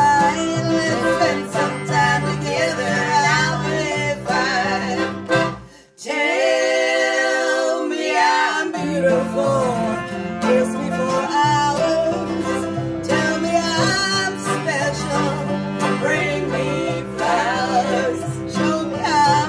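Acoustic string band with accordion, guitar, banjo and double bass playing a country-bluegrass song, with women's voices singing along. About six seconds in the band cuts out for a moment, then about two seconds of higher held notes without the bass follow before the full band comes back in.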